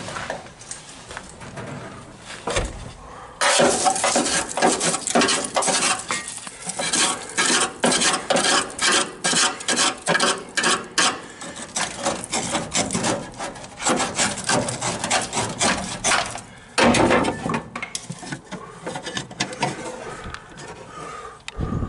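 A hand tool scraping and rasping against rusted sheet steel in quick, irregular strokes, digging packed dirt and rust scale out of a truck cab's rotted floor cavity. It is quieter at first, dense from about three and a half seconds in, and thins out near the end.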